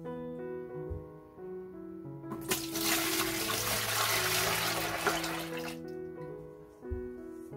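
A thick stream of milky liquid poured from a pot into a plastic container of foamy water, splashing loudly. It starts about two and a half seconds in, runs for about three seconds and dies away as the stream thins. A short thump follows near the end, over piano background music.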